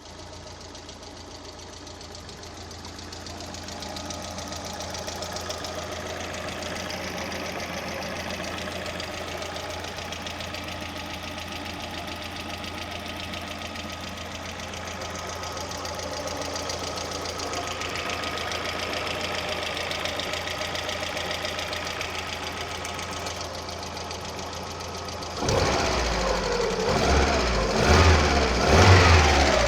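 VAZ 16-valve four-cylinder engine running with a rapid, regular ticking from its hydraulic valve lifters, the sign of lifters that are not pumping up or are worn. About 25 seconds in the sound becomes louder, with an uneven low pulsing.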